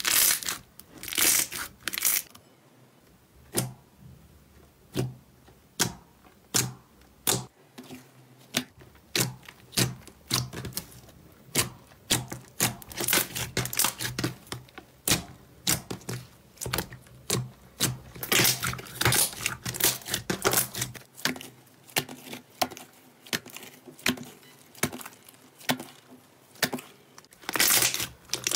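Slime being squeezed and pressed by hand: a string of sharp crackling pops, a few each second, with longer crinkly crackling stretches near the start and in the last third.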